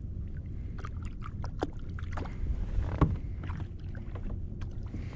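Small knocks and clicks of gear being handled in a plastic fishing kayak over a steady low rumble, with a sharper knock about three seconds in.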